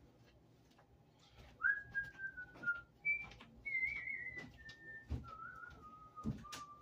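A person whistling a slow tune: a string of clear held notes that step mostly downward in pitch. Several soft knocks come in the second half.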